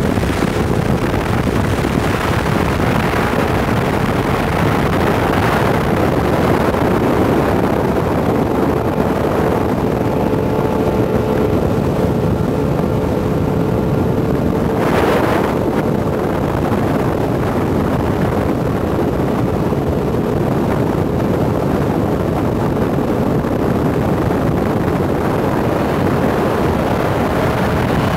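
Outboard boat engines running steadily at speed: the Mercury-powered SST 140 race boat alongside, mixed with wind on the microphone and water rushing past. A brief hiss of spray or wind about halfway through.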